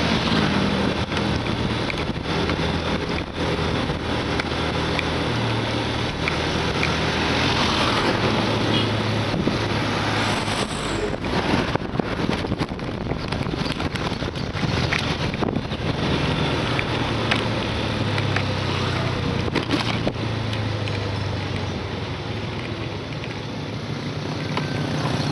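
Yamaha motorcycle engine running on the move, heard from the bike itself, with steady wind rush on the microphone; the engine note shifts up and down a few times as the speed changes.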